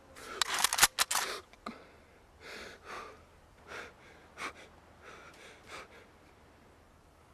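Rustling and crackling in dry leaves and undergrowth, loudest in the first second or so with a couple of sharp snaps, then a series of short, softer rustles.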